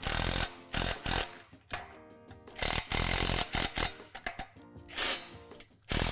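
Cordless drill driving bolts that fasten swing hangers to a metal swing bar, run in repeated short bursts with pauses between, over steady background music.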